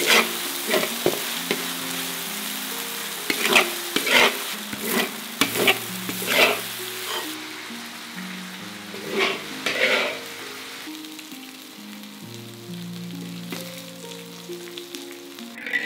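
Diced chicken and gong cai sizzling in a hot wok while a metal spatula stirs and scrapes them, with about eight scraping strokes in the first ten seconds. The sizzling dies down about halfway through.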